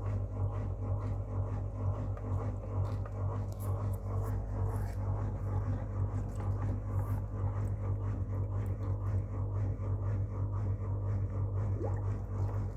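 Whirlpool FL 5065 front-loading washing machine running with a steady low hum.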